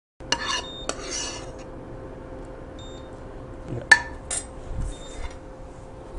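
Metal spoon clinking and scraping against a cooking pan and a steel serving plate while curry is served out: a few sharp clinks, the loudest about four seconds in, with softer scraping between them.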